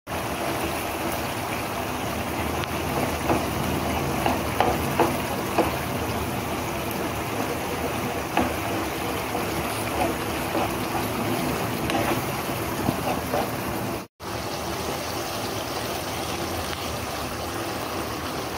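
Shrimp, calamari, peas and tomato sizzling and bubbling in a frying pan while a plastic spoon stirs, with scattered light scrapes and knocks. A split-second gap comes about fourteen seconds in, and near the end water is poured into the pan from a jug.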